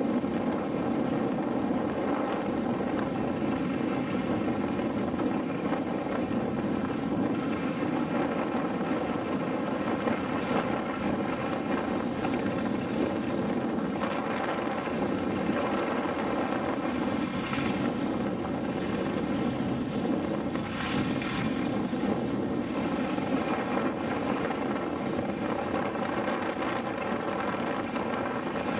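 A steady drone like a running motor, mixed with rushing wind noise on the microphone as it moves at speed over snow.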